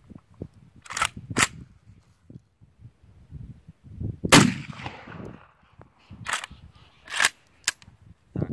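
A single 12-gauge shot from a Saiga-12 semi-automatic carbine firing a handloaded round-ball slug, about four seconds in, followed by a long echoing tail. A few sharp metallic clicks from the gun's action come twice before the shot and three times after it.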